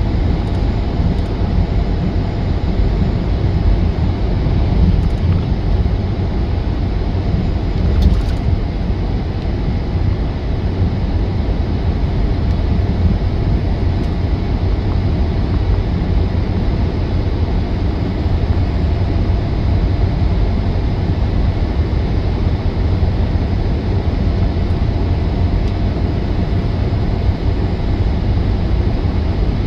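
Steady low drone of a semi truck's diesel engine and tyres at highway speed, heard from inside the cab, with a single sharp click about eight seconds in.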